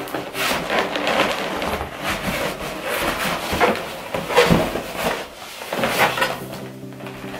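Inflated latex balloons rubbing and squeaking against each other as they are pressed and handled, in irregular bursts that ease off about six seconds in.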